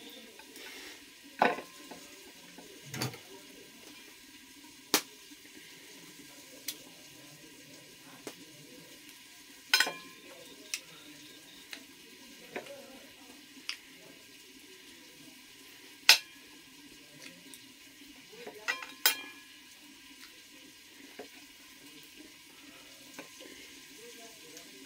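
Knife clinking and tapping against a plate while cooked meat is sliced. About a dozen sharp clicks come at irregular intervals, the loudest about 16 seconds in, over a low steady hiss.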